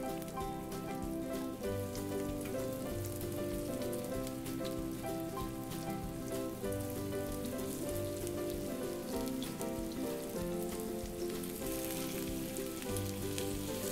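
Coated tilapia pieces shallow-frying in oil in a nonstick pan: a steady, fine crackling sizzle that grows louder near the end as more pieces go in. Background music with a melody of held notes plays throughout.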